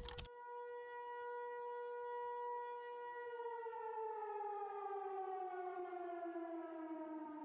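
Warning siren sounding one long steady wail, then slowly winding down in pitch.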